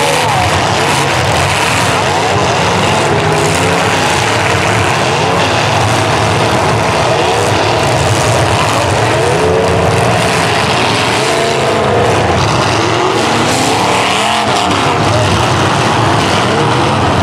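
Demolition derby cars' engines revving hard, several at once, their pitch rising and falling over a loud, constant din of engine and exhaust noise.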